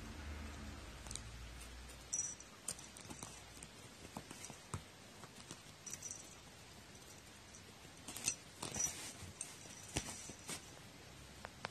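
Scattered light taps, scrapes and cloth rustles as a cat bats and bites at a thin wooden stick on a cloth-covered table, busiest a little past the middle. Faint tinkles of the small bell on its collar come with the swipes.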